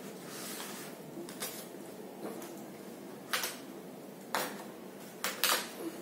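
About half a dozen light clicks and knocks, the clearest ones in the second half, over a steady background hiss.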